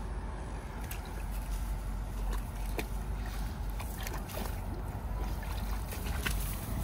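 Light rustles, clicks and wet squelches as a Labrador retriever puppy paws and noses through wet grass and mud, over a steady low rumble.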